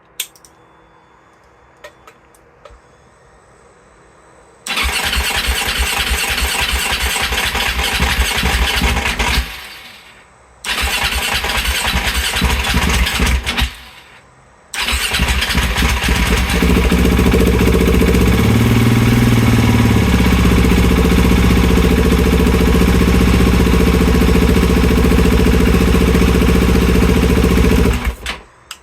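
2020 KTM 690's single-cylinder engine being hard to start: it cranks for about five seconds and fails, cranks again for about three seconds and fails, then on the third try catches after a couple of seconds. It revs briefly, runs steadily, and stops near the end.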